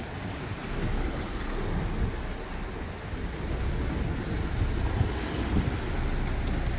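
Sea washing and breaking against the rocks at the foot of the cliffs, with wind rumbling on the microphone.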